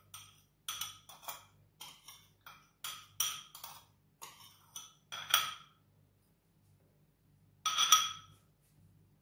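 A metal spoon clinking against a small glass bowl as dressing is poured and scraped out of it: a run of light, ringing clinks, about two or three a second for the first five seconds. After a pause there is a louder clatter of clinks near the end.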